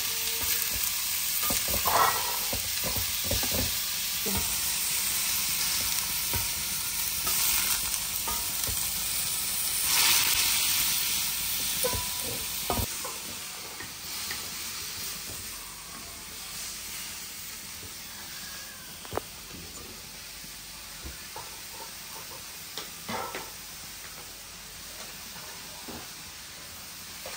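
Pork and pork belly sizzling in hot oil with garlic, ginger, lemongrass and dried chillies, stirred with a utensil. The sizzle dies down about halfway through, leaving a quieter hiss with scattered clicks and knocks of the utensil against the pan.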